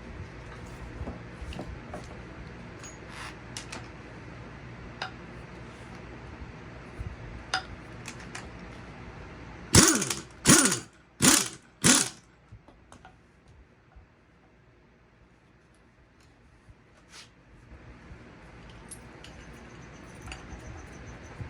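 A strut coil-spring compressor being worked with tools: light mechanical clicking and ratcheting, broken about ten seconds in by four short, loud bursts that each fall in pitch.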